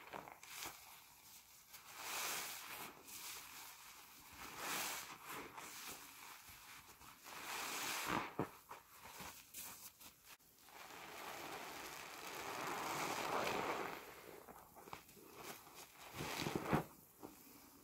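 Soapy sponges squeezed by hand in thick lather: wet squelching and crackling foam in irregular bursts, with one longer, louder squeeze a little past the middle.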